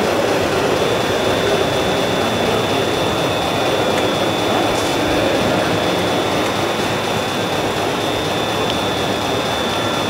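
Steady din of a large, busy exhibition hall, with a thin high whine held throughout.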